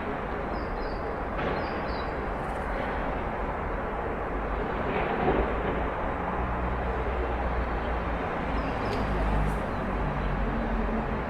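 Backyard outdoor ambience: a steady rumble and hiss of distant traffic, with a faint low hum in the second half. A few short, faint high chirps come in the first two seconds and again about nine seconds in.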